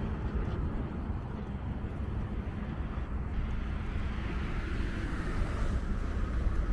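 Steady low rumble of passing vehicle traffic, growing a little louder toward the end.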